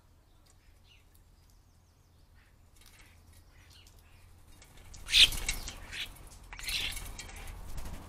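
Faint bird chirps, then two loud rustling bursts, about five and about seven seconds in, as a European starling flutters its wings while moving around a hanging mesh seed feeder.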